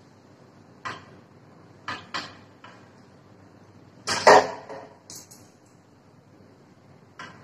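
Clicks and knocks from handling a blood-pressure cuff and stethoscope: a few sharp clicks in the first three seconds, then a louder, longer rustle about four seconds in, and a couple of faint clicks after it.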